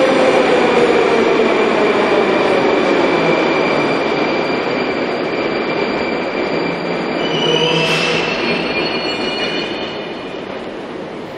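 Metro train pulling out along the station platform: wheel and motor running noise with a whine that drops in pitch over the first few seconds, a brief high wheel squeal about eight seconds in, then the sound fading as the train leaves.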